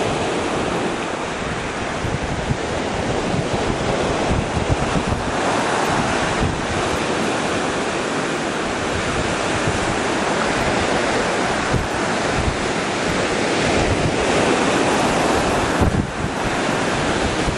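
Ocean surf washing onto a beach, mixed with wind buffeting the microphone: a steady rushing noise.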